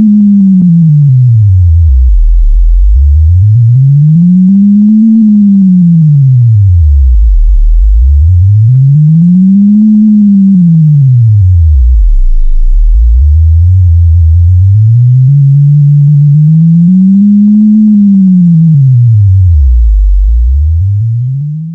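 Synthesised low sine tone from a data sonification of a person's movement through space, gliding up and down in slow arcs about five seconds each. A second, steadier tone joins for a few seconds after the middle, and the sound fades out at the end.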